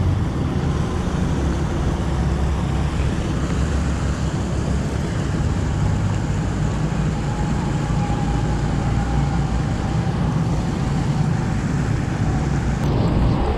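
White water of a small cascade on a spring creek rushing steadily, over a low, even rumble.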